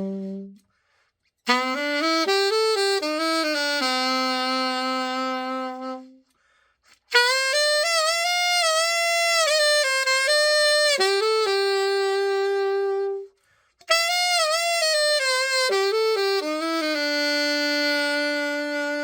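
A solo alto saxophone, the overhauled Vivace VAS-333UL, played in three short phrases of held, slow-moving notes with vibrato on the longer notes. There is a brief silence between phrases and no accompaniment.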